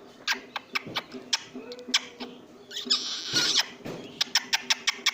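Pet parrot making a string of sharp clicks, with a short noisy squawk about three seconds in and a quick run of clicks near the end.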